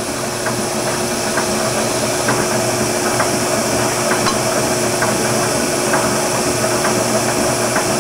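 Oliver Model 600 drill grinder running with its automatic air/hydraulic infeed engaged, the revolving chuck feeding a drill toward the spinning grinding wheel. A steady machine hum and hiss with light ticks about twice a second.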